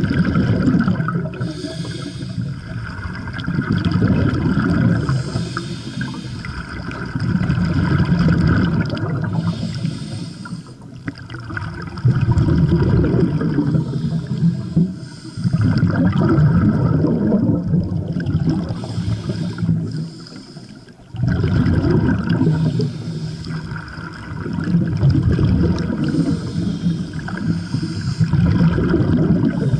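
Scuba regulator breathing underwater: hissing inhalations and gurgling bursts of exhaled bubbles, in a slow cycle with a breath every few seconds.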